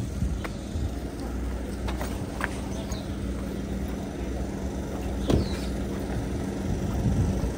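A steady engine hum from idling vehicles over a low rumble, with a few short sharp clacks; the loudest clack comes about five seconds in.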